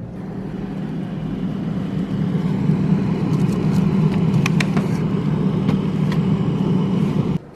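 Steady low mechanical hum of a running refrigerator-freezer, growing louder over the first couple of seconds. A few crinkles and clicks of frozen packages being moved in the freezer come about three to five seconds in, and the hum cuts off suddenly near the end.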